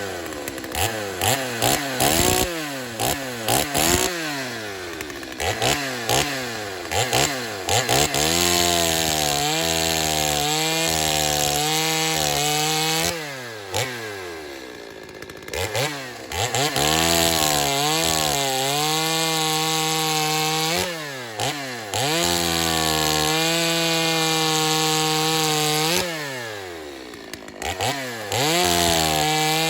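Stihl 025 two-stroke chainsaw revved in quick blips for the first several seconds, then held at full throttle for stretches of four or five seconds at a time, dropping back between them, while making test cuts in wood.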